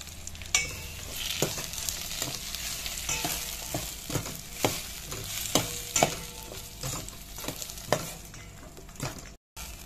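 Chopped tomatoes and green chillies sizzling in hot oil in a stainless steel pot while a metal spatula stirs them, with irregular sharp clicks and scrapes of the spatula against the pot.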